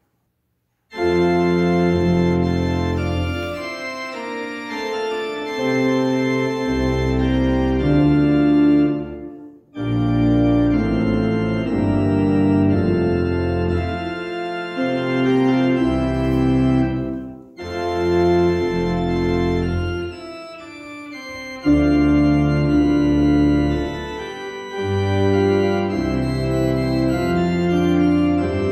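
Organ postlude: sustained chords over deep bass notes, starting about a second in. It plays in phrases with short breaks about ten and eighteen seconds in.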